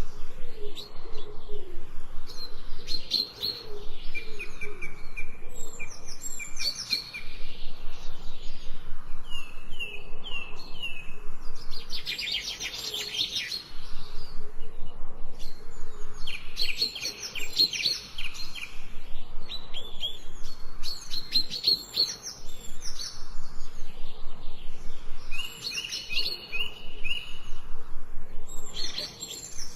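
Birds chirping and singing: repeated runs of quick, high notes with short pauses between them.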